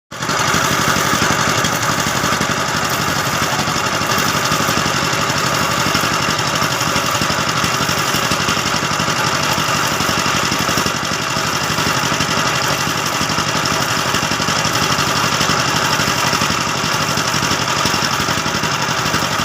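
A motor running steadily without a break.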